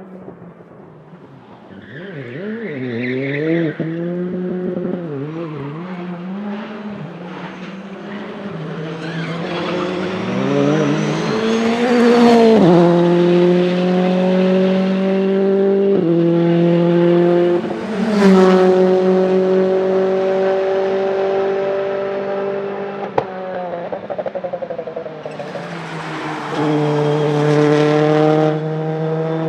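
Citroën C3 R5 rally car's 1.6-litre turbocharged four-cylinder engine revving hard on track. The pitch wavers up and down at first, then climbs and holds high with sudden drops at gear changes. There is one sharp crack about two-thirds of the way through.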